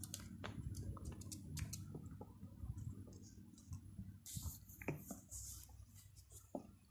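A puppy gnawing a chew stick on a fabric blanket: faint, scattered clicks and taps, with a brief rustle of cloth between about four and six seconds in.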